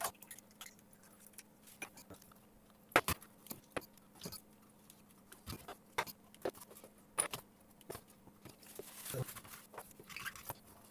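Scattered small clicks and knocks of a bare computer motherboard and hand tools being handled and turned over on a workbench, the loudest knock about three seconds in, with a soft rustle near the end.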